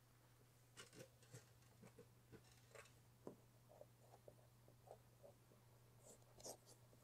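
Near silence with faint rustles and light taps as fingertips press and slide a paper-masked vinyl hood graphic across a car's painted hood, nudging it into position. A low steady hum sits underneath.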